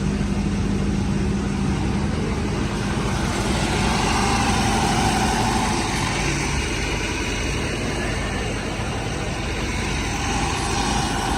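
Gas-engine generator set running steadily under test: a dense, even engine rumble with a faint whine that comes and goes.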